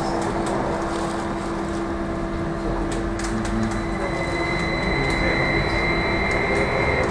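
Trolleybus cabin on the move: a steady electric drive hum over road rumble and light rattles, joined about four seconds in by a high whine from the electric drive.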